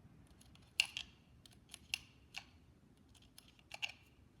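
Small sharp metal clicks and taps, about eight spread irregularly, the loudest about a second in: the stopper being worked out of the R1 buffer ring lock on an AR-15 lower receiver.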